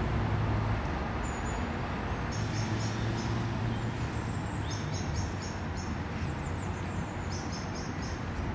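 Steady rumble of road traffic, with a small bird chirping in short quick runs of high notes several times.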